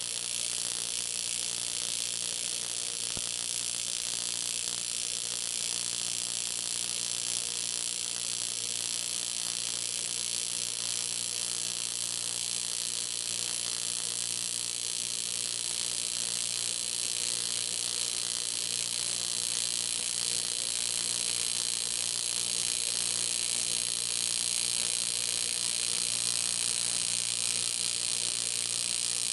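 AC TIG welding arc on 3 mm aluminium sheet: a steady hiss over a low electrical hum, unbroken throughout and growing slightly louder in the second half.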